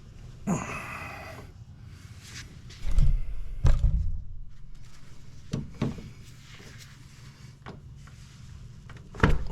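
Crow's foot wrench on a pull bar slipping on a rounded-off power steering high-pressure line nut, giving a series of dull metal clunks and knocks. The loudest is a pair about three seconds in, with lighter knocks after and another near the end.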